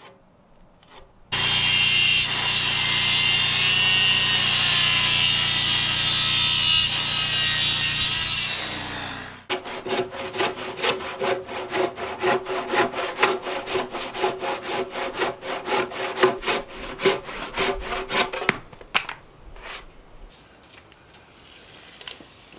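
A circular saw cuts into a timber beam for about seven seconds, then spins down. A handsaw then works through the cut in rapid, even strokes for about nine seconds.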